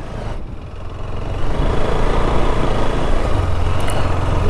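Motorcycle riding over a rough, dusty dirt road: engine running under steady rumble and road noise, getting louder about a second and a half in.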